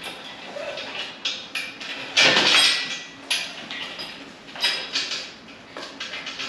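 Irregular metallic clanks and rattles of lifting rigging and hardware being handled at an engine crane, with a louder, longer rattling scrape about two seconds in.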